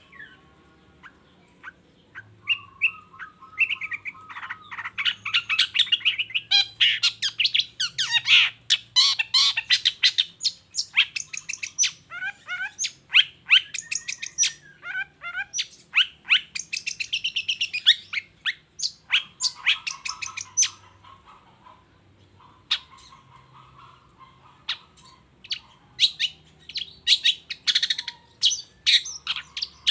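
Long-tailed shrike (cendet) singing a fast, varied song of sharp chirps and trills, quieter for a moment near the start and again about two-thirds of the way through.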